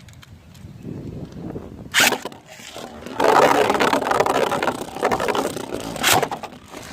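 A Beyblade launch about two seconds in, then Beyblade tops spinning and scraping around a plastic stadium in a dense rattle, with a sharp clash about six seconds in.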